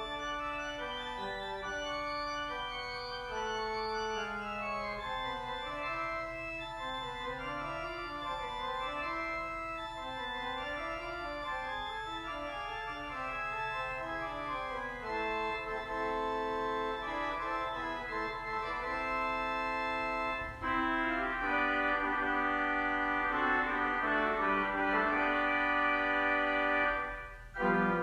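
Organ playing slow music in held, sustained chords with a moving line of notes. It grows louder about three-quarters of the way through, then breaks off briefly just before the end.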